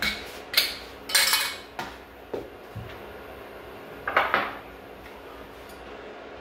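Dishes, cutlery and kitchenware clinking and clattering as they are moved around and set down on a counter: a string of sharp knocks, busiest about a second in and again about four seconds in.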